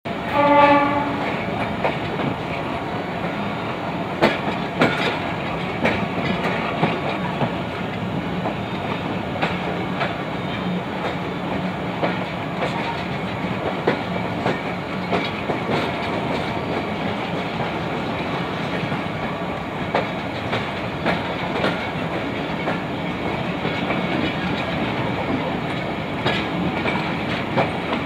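Train running, heard from on board: a steady rumble of the carriages with irregular clicks and clacks of the wheels over rail joints. A short pitched tone sounds at the very start.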